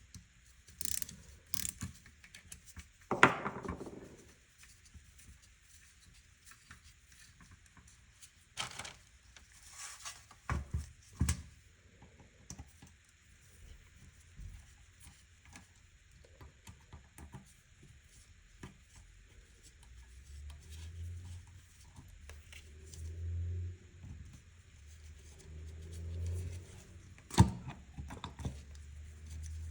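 Hand-work sounds of tools and metal parts being handled: scattered clicks, taps and knocks, with one loud knock a few seconds in and a low, uneven rumble in the last third.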